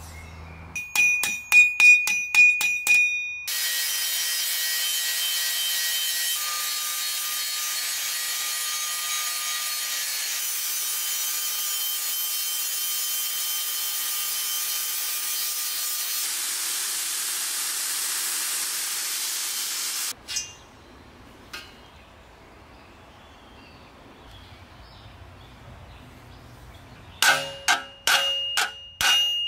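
A quick run of sharp, ringing metal taps. Then an angle grinder with an abrasive cup disc grinds the steel scythe blade steadily for about sixteen seconds and stops suddenly. Near the end come loud ringing hammer strikes on the blade's edge laid on an anvil, peening the edge.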